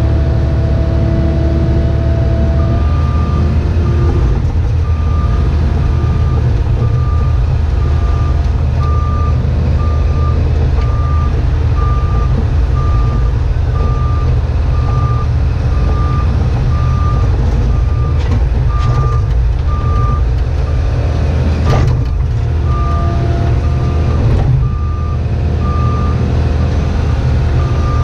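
Cat 304E2 mini excavator's diesel engine and hydraulics running steadily under load while digging, heard from inside the cab. From about three seconds in, a backup alarm beeps at an even pace, and a single sharp clank comes near the end.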